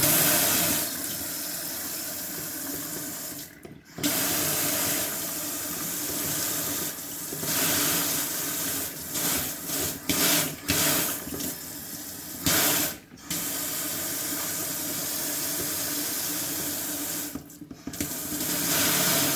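Water running from a single-lever mixer tap into a sink. The flow swells and eases and briefly drops almost to nothing three times as the lever is moved, testing the freshly greased cartridge.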